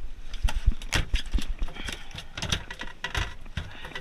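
A freshly landed saithe thrashing on the boat's deck: rapid, irregular slaps and knocks.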